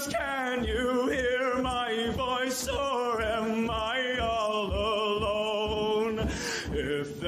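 Background music: a voice singing long, wavering operatic notes over a steady low beat.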